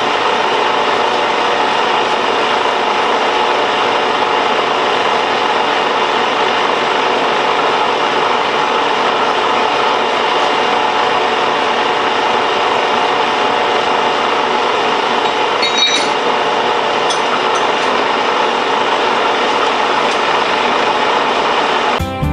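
Metal lathe running steadily with its spindle turning, an even mechanical whir, with a few faint clicks about two thirds of the way through.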